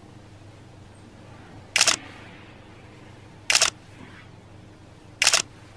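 Three camera shutter clicks, evenly spaced about one and three-quarter seconds apart.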